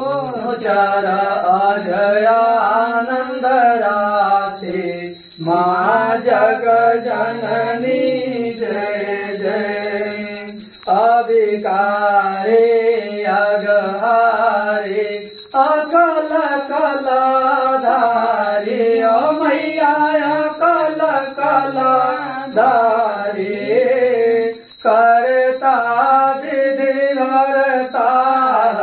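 Pandit singing a Hindu aarti hymn in a man's voice, in long devotional melodic phrases with short breaks for breath between them.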